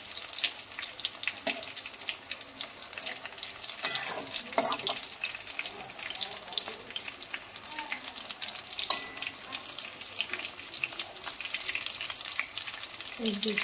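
Battered chicken leg pieces frying in very hot oil: a steady crackling sizzle full of small pops, with a few louder crackles about four and nine seconds in.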